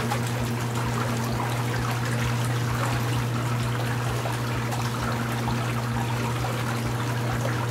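Outdoor hot tub with its jets running: water bubbling and churning over a steady low hum.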